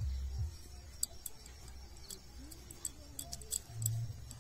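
Small handheld metal grater scraping a piece of cheese, heard as light, irregular ticks and scrapes.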